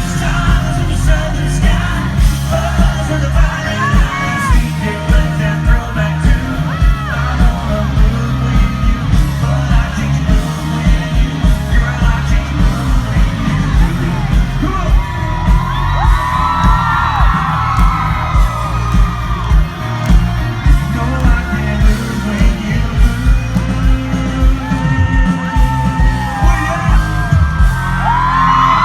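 Live band music from a concert with a steady, heavy drum beat and a lead singer, the crowd yelling and whooping along.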